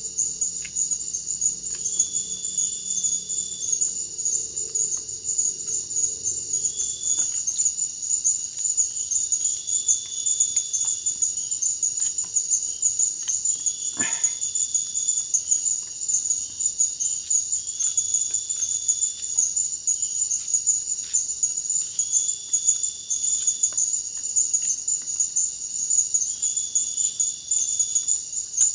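Forest insects such as crickets chirring in a steady, high, finely pulsing drone, with a second, lower insect call repeating every couple of seconds.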